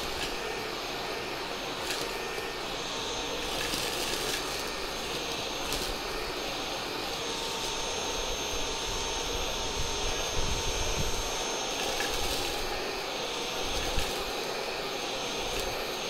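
Cecotec Conga Rockstar 1500 cordless vacuum with a brushless motor, running steadily in handheld mode at medium power: a constant rush of air with a thin high whine, and a few faint clicks as muesli, salt and ground coffee are sucked up.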